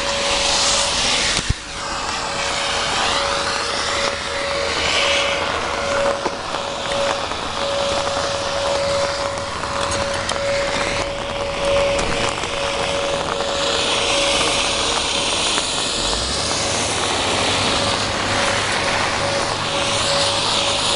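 Rain and gusting wind buffeting the microphone, with a steady high tone that pulses in level throughout.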